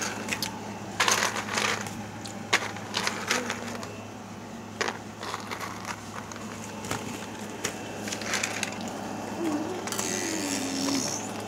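Light clicks and rustles of plastic ball-pit balls knocking together as a baby moves among them, scattered irregularly, with a short gliding baby coo near the end over a steady low hum.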